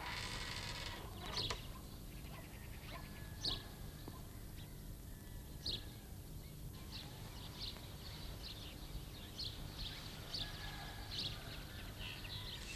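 Birds chirping now and then, short high calls about once a second, over a steady low hum, with a brief scraping noise at the start.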